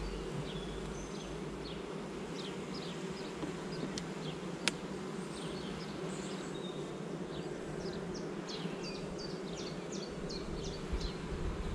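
Honeybees buzzing around an opened hive, a steady hum. A single sharp click sounds about halfway through, and short high chirps come and go throughout.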